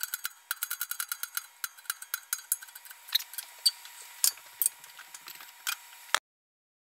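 Light metallic clicks and clinks as steel parts of a hydraulic shop press, the ram and a steel pipe sleeve, are handled. There is a quick run of ticks early on, then fewer and sharper clinks, and the sound cuts off suddenly about six seconds in.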